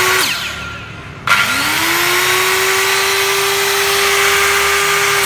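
Hitachi C6MB3 165 mm circular saw motor running free with no load. It is switched off at the start and stops within about half a second under its electric brake, which works properly. About a second in it is switched on again, its whine rising quickly to a steady pitch until it is cut off at the very end.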